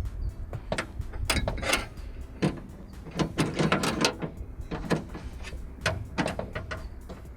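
Hands and tools working on a Hyundai Santro's car door while a new outside door handle is fitted: irregular clicks, knocks and scrapes of metal and plastic parts, with a denser patch of rattling and scraping around the middle.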